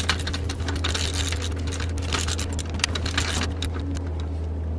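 Hand ratchet clicking rapidly as it tightens the bolt of a new alternator belt idler pulley with a 16 mm socket; the clicks thin out near the end. A steady low hum runs underneath.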